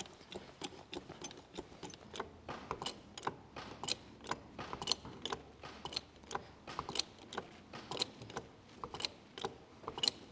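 Irregular sharp clicks and ticks, several a second, as an old timber barn is raised on jacks: the building is creaking and chattering under the lift.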